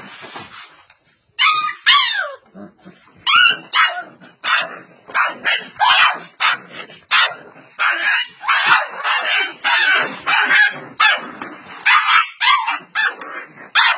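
Dog yipping and barking in quick, short, high-pitched calls, about two a second, some sliding down in pitch.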